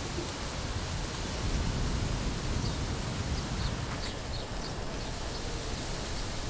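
Outdoor wind noise: a steady low rumble and hiss of wind buffeting the microphone, with a few faint high bird chirps in the second half.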